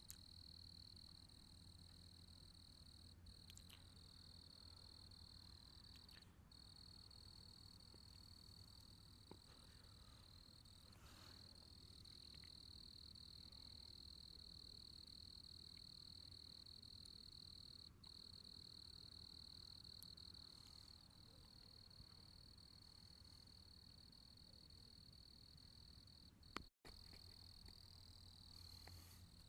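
Crickets chirping in a faint, steady, unbroken high-pitched trill, with a few brief breaks.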